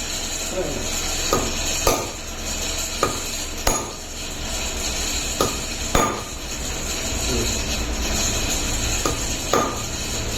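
Metal tools knocking on metal gearbox parts: about eight sharp clinks at irregular intervals, each ringing briefly, over a steady low hum that grows louder about halfway through.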